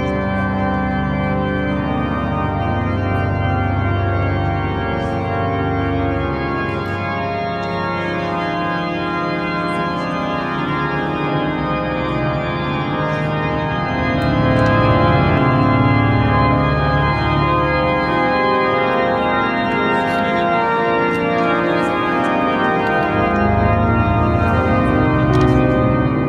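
Notre-Dame Cathedral's pipe organ playing slow, sustained chords during mass, swelling louder about halfway through. A few faint clicks sound underneath.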